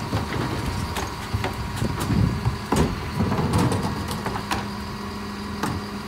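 Terberg OmniDEL electric bin lifter on a Mercedes-Benz Econic bin lorry lifting, tipping and lowering a plastic wheelie bin: a run of knocks and clatters from the bin and lifter over the lorry's running engine, with a steady hum joining about two-thirds of the way in.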